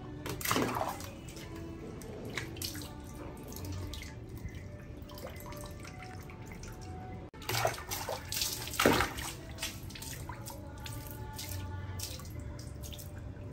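Water splashing and dripping in irregular bursts as a small monkey swims, loudest twice: just after the start and about nine seconds in. Background music plays underneath.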